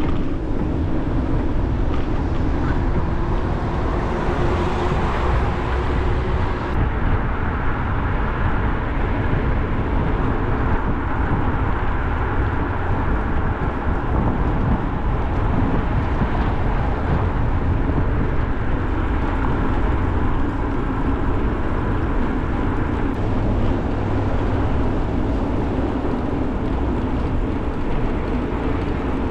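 Steady rushing noise of riding a bicycle on the road, with wind on the microphone and the hum of the tyres.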